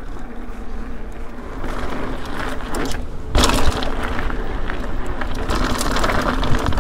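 Ibis Ripmo mountain bike riding fast down a rough dirt singletrack: tyres rolling on dirt and the bike rattling and clicking over the trail, with wind on the helmet camera. It gets suddenly louder a little over three seconds in.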